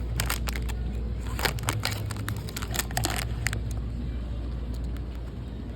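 Store background: a steady low hum with scattered clicks and rustles of handling during the first three seconds or so.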